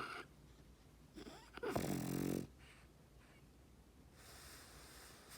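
A sleeping French bulldog snoring: one loud, rattling snore about two seconds in, lasting under a second, with softer snuffling breaths before and after it.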